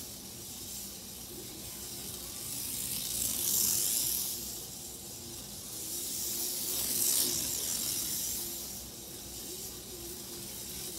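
Johnny Lightning Thunderjet 500 Batmobile HO slot car lapping the track: a hissing whine from its small electric motor and gears that swells each time the car comes by, about every three and a half seconds.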